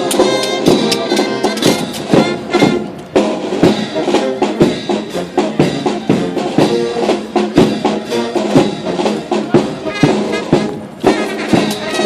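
Brass band music with drums: trumpets and other brass playing over frequent, sharp drum strikes.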